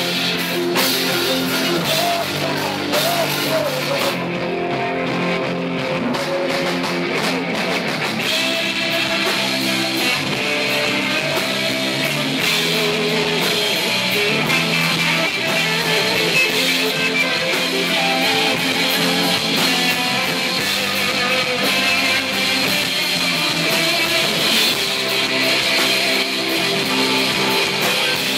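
Rock band playing live: two electric guitars over a drum kit, played loud and steady.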